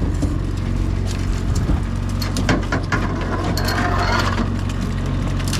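Boat engine running steadily underneath, with scattered knocks and clattering on the boat as a freshly netted salmon is handled aboard, busiest around the middle.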